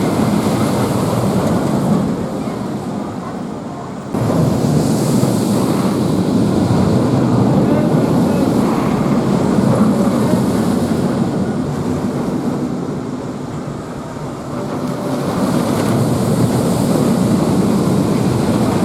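Wind buffeting the microphone: a loud, rough rumble that swells and eases, jumping up suddenly about four seconds in.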